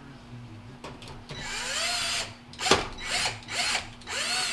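Power drill driving screws in spurts: one longer run, then a sharp click, then three short bursts, the motor's pitch rising and falling with each squeeze of the trigger.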